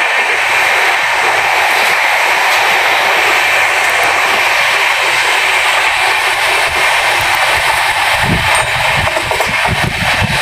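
A moving train heard from its open doorway: a steady rushing of wheels on rail and wind, with a deeper rumble joining about eight seconds in.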